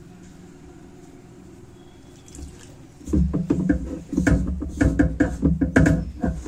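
Water added a little at a time to wheat flour and worked in by hand to make paratha dough. After about three seconds of faint hum comes a loud, irregular run of wet mixing sounds.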